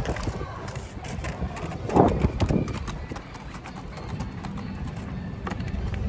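A dry palm frond scraping and rattling over stone paving as a dog drags it, with scattered sharp clicks and a louder scrape about two seconds in. Wind rumbles on the microphone underneath.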